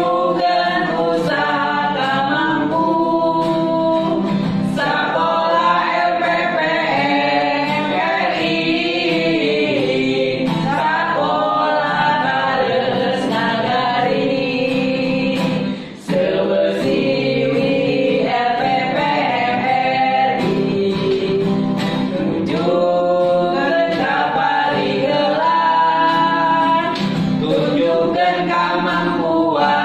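A group of men and women singing a Sundanese song together in unison, accompanied by acoustic guitar, with a brief break in the singing about halfway through.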